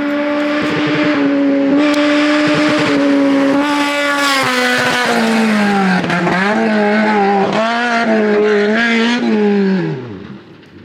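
An off-road race car's engine passing at speed, held at high revs for a few seconds. Its note then drops and rises again several times as it shifts through the gears, fading away near the end.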